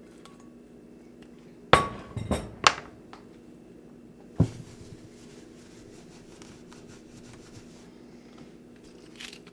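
Kitchenware knocking and clinking: three sharp clacks in quick succession about two seconds in, and one more about four and a half seconds in, over a low steady hum.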